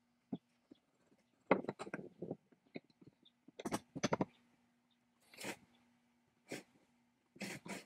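Metal parts of a 1930s Cutawl rotary jigsaw, its cast frame and steel base plate, handled and shifted on a workbench: a series of light knocks, clicks and scrapes, bunched about one and a half seconds in, again around four seconds, and near the end, over a faint steady hum.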